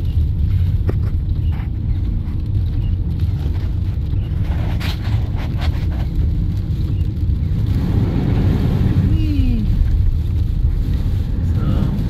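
Inside a moving car in strong hurricane wind: a steady low rumble of road and wind noise, with a few brief clicks about five seconds in.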